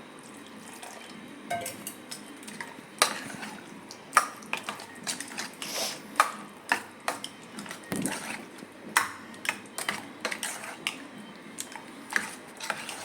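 A spoon stirring and mixing curd rice in a bowl, clinking against the vessel again and again at an uneven pace, with soft wet squishing.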